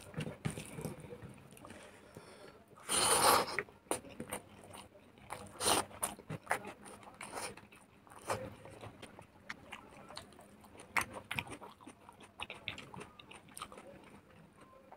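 Close-miked eating sounds: chewing and mouth smacks, with fingers squishing rice against a paper plate, in scattered short clicks. One louder noisy burst about three seconds in.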